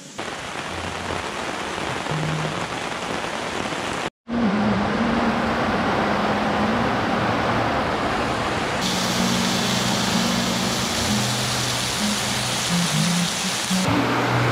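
Heavy rain falling in a steady, loud hiss, cutting out briefly about four seconds in and turning brighter after about nine seconds. Background music plays low sustained notes over it.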